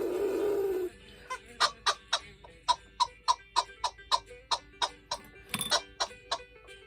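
A buzzing sound with a wavering pitch cuts off about a second in. It is followed by an even run of sharp ticking clicks, about three a second, with one louder click near the end.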